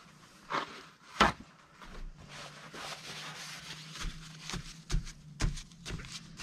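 Wet watercolour paper being blotted by hand: a couple of knocks, a stretch of rustling and rubbing, then a run of soft pats about twice a second from about four seconds in.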